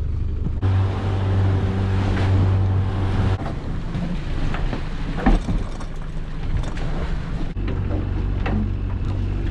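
A small fishing boat's engine running steadily, with wind and water hissing around it and a single knock about five seconds in.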